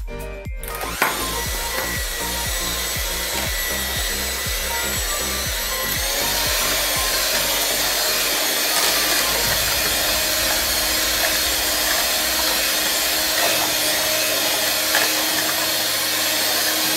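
Electric hand mixer running, its beaters churning avocado chunks into a thick milk mixture in a steel pot. It starts about a second in and grows a little louder around six seconds in.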